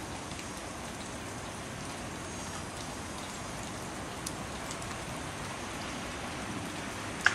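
Steady patter and hiss of wet snow falling. A faint tick comes about four seconds in, and a sharp click just before the end.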